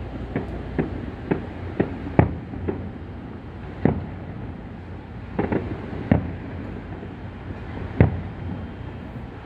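Aerial fireworks shells bursting in a string of sharp bangs, about ten of them at uneven intervals, the loudest about two seconds in and near the end, over a steady low background rumble.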